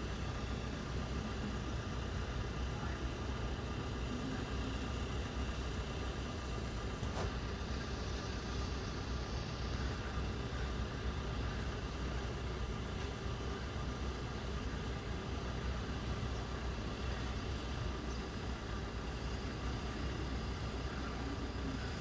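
Steady outdoor city ambience: a continuous low hum of distant road traffic.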